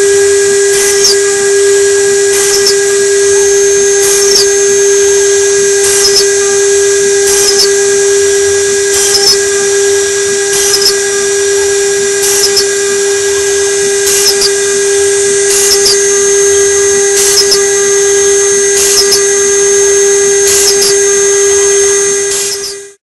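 2.2 kW spindle of a homemade CNC router running steadily with a high whine while its bit mills copper-clad PCB board, with a hissing cutting sound that swells about every second and a half. It cuts off suddenly near the end.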